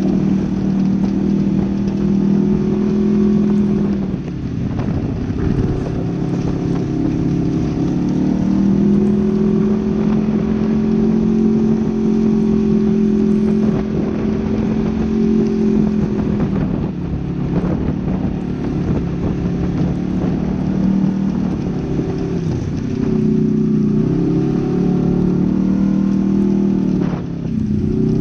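Polaris RZR XP 900 side-by-side's twin-cylinder engine running under way. Its pitch holds for stretches, then drops and climbs again as the throttle changes, with clear dips about four seconds in and again around seventeen seconds.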